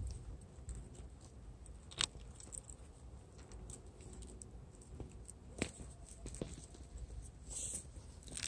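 Scattered sharp clicks and small knocks of loose stones as a tortoise clambers over rocky ground, its shell and claws scraping the rock. The loudest click comes about two seconds in, with a few more in the second half, over a faint low rumble.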